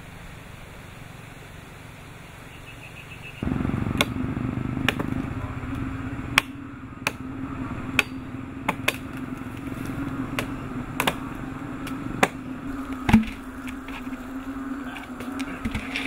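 Machete blades chopping into the wood of a fallen tree: about ten sharp, irregular strikes over a steady low motor hum.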